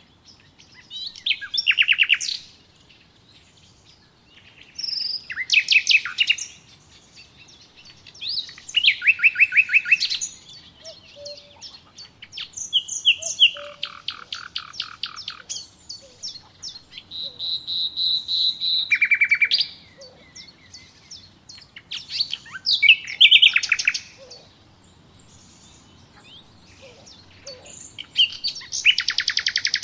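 Songbirds singing: short phrases of rapid, high chirps and trills, a new phrase every few seconds with quiet gaps between.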